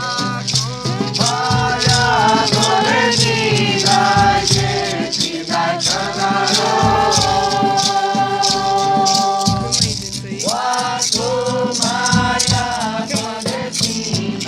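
Live acoustic song: voices singing together over hand shakers that keep a steady, fast rhythm, with low beats underneath.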